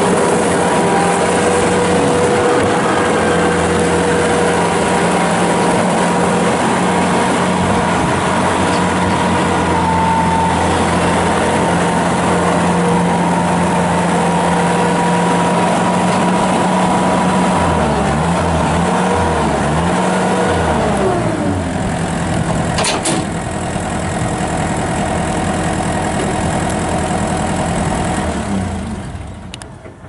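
A Thomas T243HDS skid steer's 83 hp Deutz turbo diesel running steadily at high throttle. About 18 seconds in the revs waver and drop to a lower steady run, and the engine shuts down just before the end.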